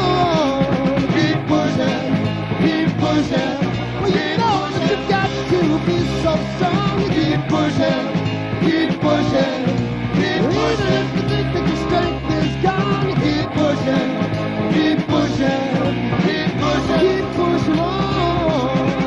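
Rock band music with a steady beat, with a lead line sliding up and down in pitch over the drums, bass and guitars.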